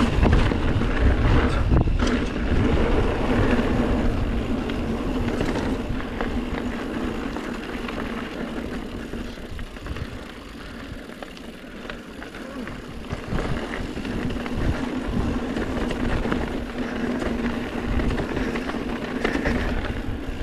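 Mountain bike riding down a dirt singletrail: tyres rolling over dirt and rocks, with frequent rattles and knocks from the bike, and wind buffeting the helmet camera's microphone. It goes quieter for a couple of seconds about halfway through, then picks up again.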